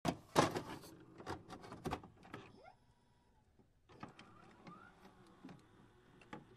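Electronic glitch sound effects: a burst of sharp digital clicks and crackles, loudest in the first second or two, with a few short rising blips, then after a brief lull a quieter run of clicking and faint buzzing tones.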